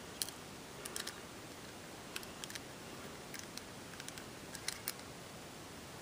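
Small metallic clicks of a hand-ground key being worked in the keyway of an old Yale padlock, about a dozen sharp clicks, some in quick pairs, spread unevenly over a few seconds.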